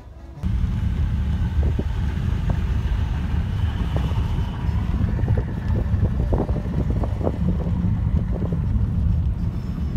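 Road and wind noise inside a moving car: a steady low rumble with wind buffeting the microphone, and scattered light knocks, starting abruptly about half a second in.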